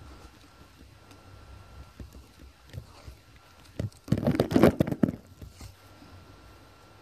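Tape being pulled off a roll in one loud, crackling rip lasting about a second, about four seconds in, amid quiet handling noises from hands working at a tyre's rim.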